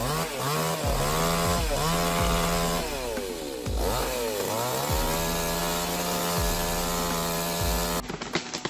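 Chainsaw engine at high revs cutting wood, its pitch dropping and recovering several times as it bogs in the cut, then running steadily. Near the end it gives way abruptly to a series of short knocks.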